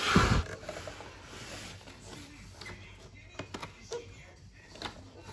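Cardboard packaging and a paper shopping bag being handled: a heavy boxed blender thumps once right at the start, then light rustling and tapping as the box's card sleeve and flaps are worked open.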